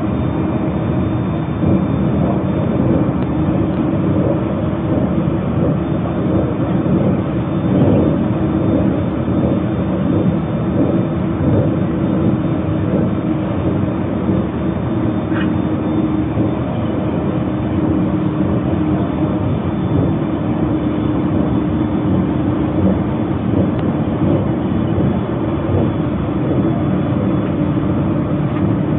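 Steady running noise of a Narita Express electric train heard from inside the carriage at speed: wheels on rails and the body's rumble, with a few faint steady tones underneath.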